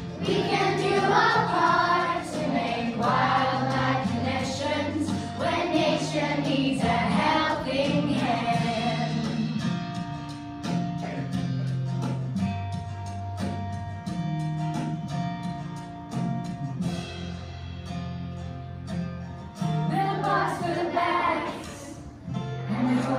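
A group of children singing a song together to accompanying music. About ten seconds in the voices drop out for an instrumental passage of held chords, and the singing comes back near the end.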